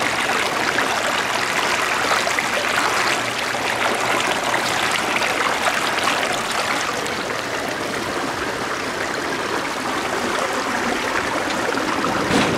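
Running water rushing and trickling over the rocks of a shallow stone-edged pool, a steady even sound.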